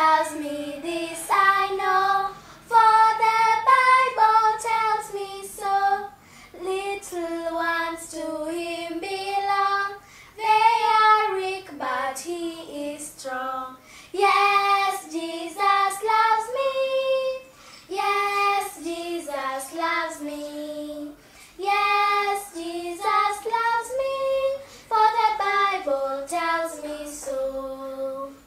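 Two young girls singing a gospel song in phrases with short breaks between them.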